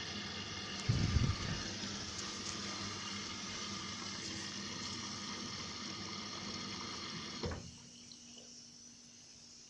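Indesit washing machine taking in water: a steady rushing hiss of water through the inlet valve that cuts off sharply about seven and a half seconds in as the valve shuts, leaving a quieter low hum. A low thump about a second in.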